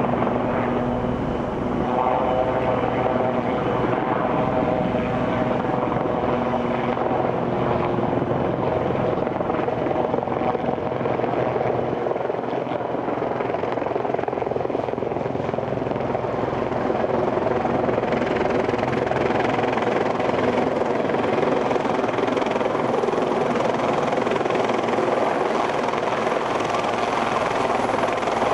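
Sikorsky S-76 helicopter hovering close overhead: steady rotor noise with several held engine tones running under it.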